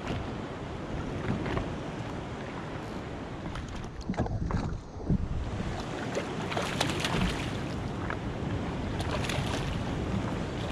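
Wind buffeting the microphone over sea water slapping against a jet ski's hull, with bursts of splashing in the second half as a hooked fish thrashes at the surface beside the craft.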